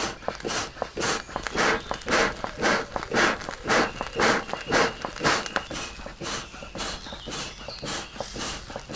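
Hand bellows puffing air onto burning charcoal in quick, even puffs, about two or three a second, growing softer after about six seconds.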